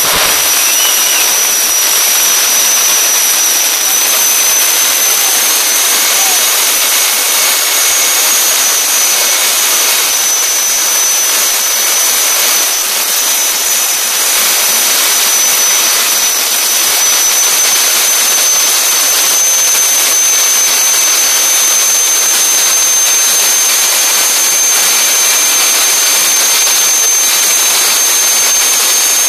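Jet dragster turbine engines running at the drag strip's start line: a loud, steady hiss with a high whine held on one pitch, creeping slightly higher.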